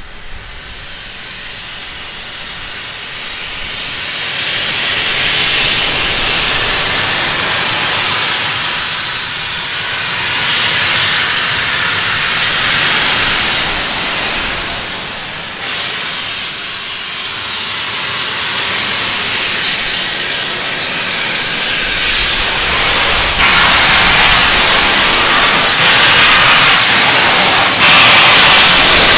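Steam locomotive Taff Vale Railway No. 85, an 1899 0-6-2 tank engine, hissing loudly as steam jets out of its open cylinder drain cocks. The hiss grows steadily louder, with sudden jumps in level twice near the end.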